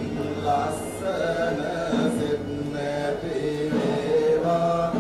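Buddhist chanting of blessings by several voices together, in long held notes that shift slowly in pitch.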